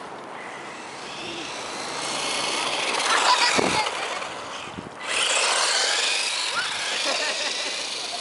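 Traxxas E-Revo electric RC monster truck driving on a gravel path: motor whine with tyres crunching over the gravel, loudest as it passes close about three seconds in, then again from about five seconds in as it runs off up the path.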